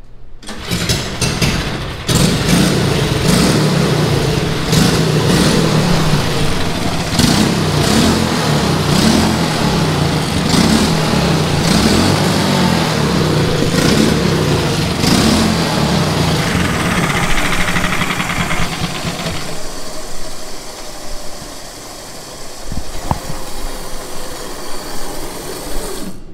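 Briggs & Stratton LO206 kart engine, a single-cylinder four-stroke, starting up and running, its revs rising and falling over and over as the throttle is worked. It shuts off about three-quarters of the way through.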